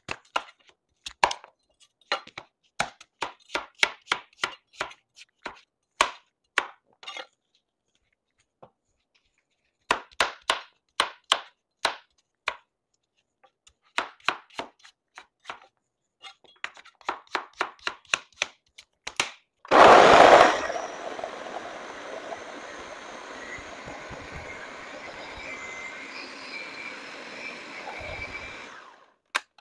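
Large kitchen knife chopping pumpkin on a cutting board in quick runs of strokes with short pauses. About twenty seconds in, a Ninja blender starts with a loud burst and runs steadily for about nine seconds, pureeing chopped pumpkin, sweet potato and carrots, then stops.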